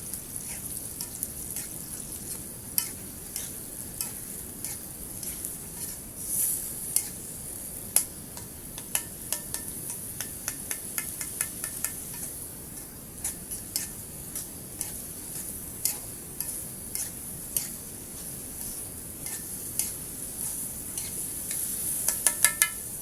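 Something sizzling and crackling over heat: a steady high hiss with irregular sharp pops, and a quick run of pops near the end.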